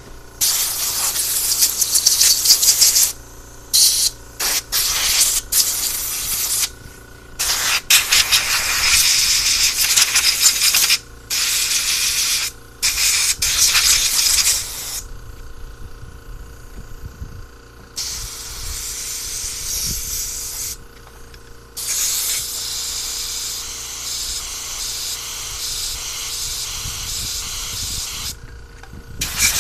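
Compressed-air blow gun blasting air through a carburetor being cleaned of varnish and gunk: a quick series of loud hissing blasts of varying length, then two longer, softer stretches of hiss in the second half.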